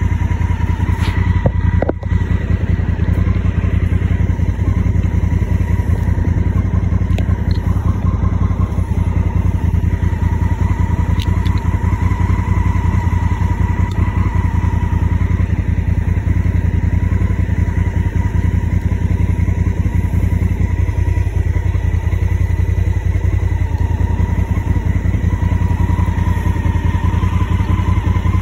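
Honda Africa Twin motorcycle's parallel-twin engine running steadily, with no revving.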